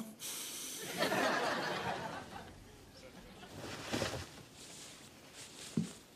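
Studio audience laughter that dies away over about two seconds, then a quiet room with a soft rustle of bedclothes about four seconds in as someone sits up in bed.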